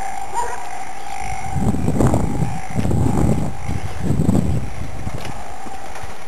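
Wind buffeting the microphone in three rumbling gusts a second or so apart, over a steady faint whine.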